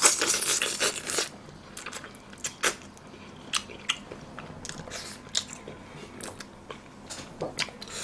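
Close-miked eating sounds of a man biting and chewing meat off a pork spine bone from gamjatang. There is a dense run of chewing in the first second or so, then scattered short, sharp wet clicks.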